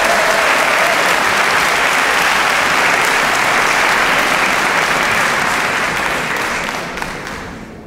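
Large concert-hall audience applauding steadily, the clapping fading out over the last two seconds.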